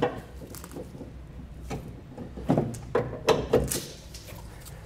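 Metal spare-tire tool rods clinking and knocking as they are fitted together and pushed through the bumper access hole onto the spare-tire winch. A sharp click at the start, then a quick run of four or so knocks around the middle.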